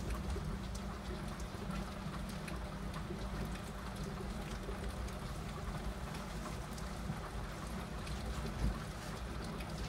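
Heavy rain falling steadily, with a low rumble underneath and scattered drops ticking on the window glass. A short low thump near the end.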